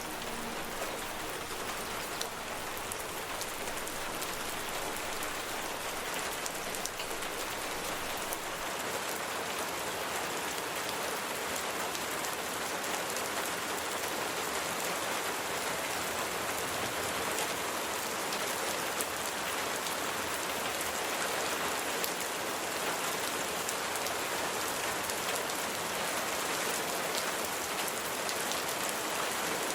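Steady rain falling on a surface: an even hiss with scattered sharper ticks of single drops.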